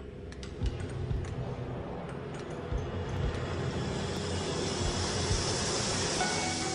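Film soundtrack sound design: a low rumbling drone with a few dull thuds, swelling into a rising whoosh-like hiss toward the end.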